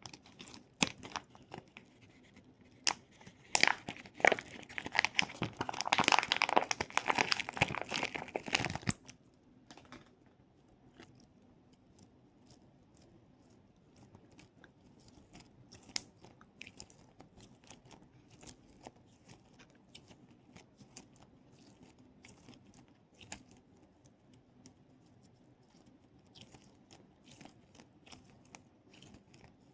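Close-up ASMR handling of crinkly plastic: scattered clicks, then a dense stretch of crackling and crunching from about four to nine seconds in, followed by sparse faint taps and ticks.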